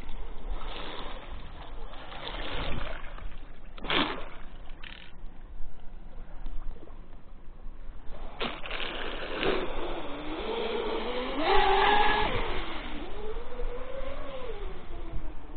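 Twin-motor electric RC catamaran (Minicat 820 EP) running on the water: a steady rush of water and air with a few sudden louder swooshes. From about two-thirds of the way through, a motor whine rises and falls in pitch with the throttle.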